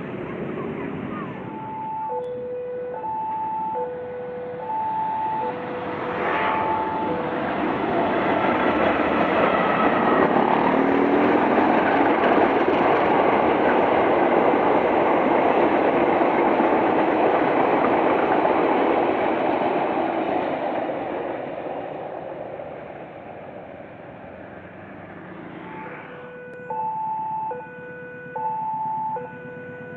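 Level-crossing warning alarm sounding a repeating high-low two-tone pattern while a passenger train passes close by, its wheels on the rails building to a loud steady rush for about ten seconds and then fading away. Near the end the crossing alarm starts up again.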